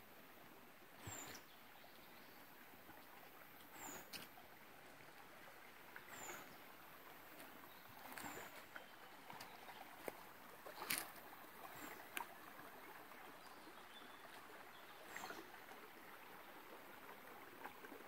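Shallow stony creek flowing, a faint steady rush. A short high chirp recurs about every two seconds.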